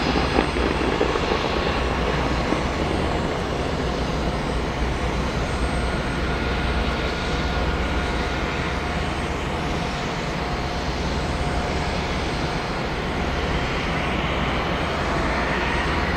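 Propeller aircraft piston engine running steadily at an even level, with a faint whine on top of a low drone.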